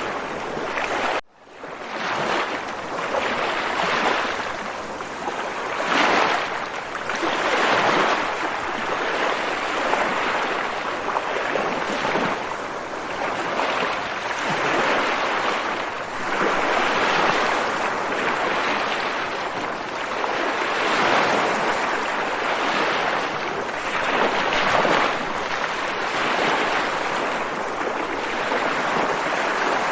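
Ocean waves washing in, a steady rush that swells and eases every couple of seconds. The sound cuts out very briefly about a second in.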